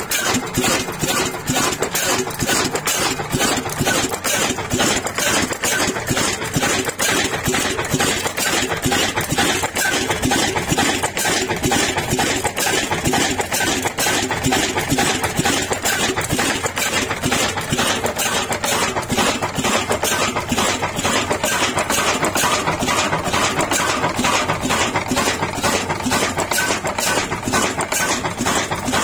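Old stationary horizontal diesel engine of the Ruston Hornsby pattern, a 20 hp, 300 rpm Saeed Brothers (Lahore) build with a heavy flywheel, running steadily at working speed with an even, rapid mechanical beat.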